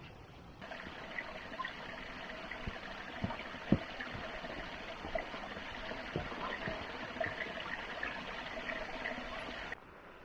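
Small woodland stream trickling, with a few footfalls knocking on a wooden plank footbridge, the loudest about a third of the way in. The water sound starts about half a second in and cuts off shortly before the end.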